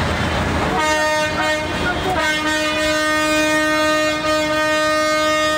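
A vehicle air horn sounding one long, steady blast, starting about a second in. It wavers at first, then holds a single note.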